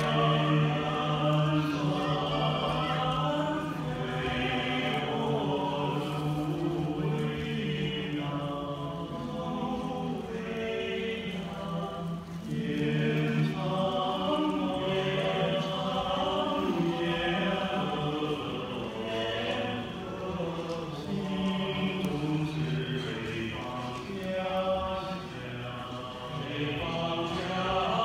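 A six-man male vocal group singing together in harmony on a miked stage, several voices holding and moving pitches at once.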